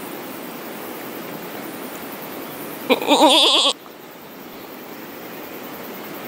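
Feral billy goat giving a single quavering bleat, under a second long, about three seconds in.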